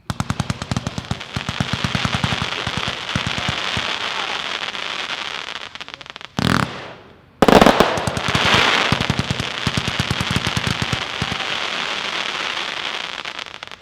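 A 90-shot crackling comet and crackle shell fireworks cake firing: a rapid run of launch thumps under a dense, continuous crackle. The firing drops off briefly about six to seven seconds in, then a loud burst sets off more crackling.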